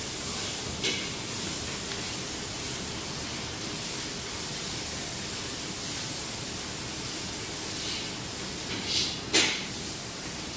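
Steady even hiss of background noise, with a few brief rustles of handling: one about a second in and a cluster near the end, the loudest about nine seconds in.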